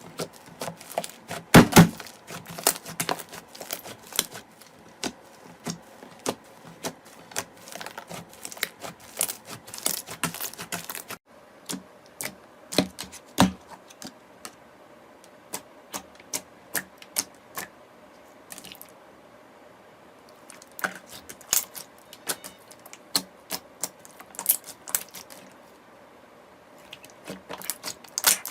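Slime being squeezed and pressed by hand, giving many sharp, irregular clicks and pops with a sudden break about a third of the way through.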